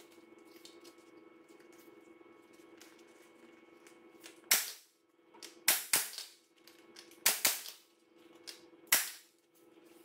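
Pneumatic staple gun firing six times, stapling vinyl upholstery onto a seat base. The first shot comes about halfway through; each is a sharp crack, some in quick pairs, over a faint steady hum.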